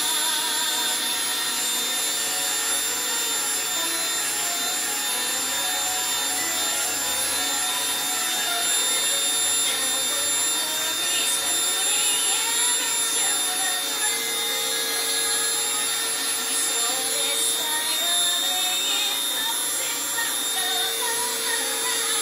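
Small rotary tool running steadily with a diamond drill bit, drilling through a piece of sea glass.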